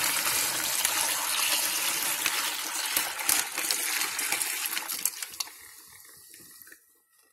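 Liquid brine poured in a steady gushing stream onto a raw turkey breast inside a plastic brining bag. The pour tapers off about two thirds of the way through and stops near the end.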